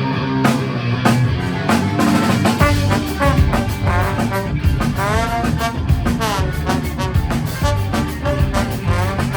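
Ska band playing live, the drum kit keeping a steady beat; the low end fills out about two and a half seconds in as the bass joins.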